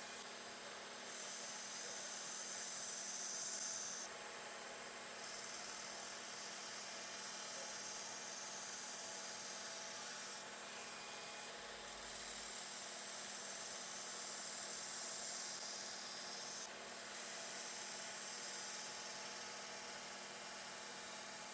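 Kitchen knife blade being ground on a powered sharpener. A steady motor hum runs under hissing grinding passes of a few seconds each, with short breaks between them.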